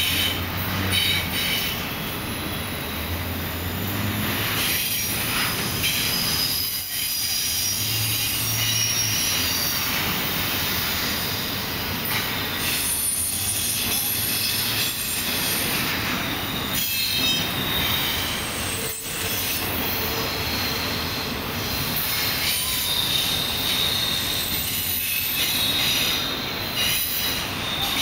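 Double-stack intermodal freight train rolling past steadily, a continuous rumble of cars on the rails with high-pitched wheel squeal that comes and goes.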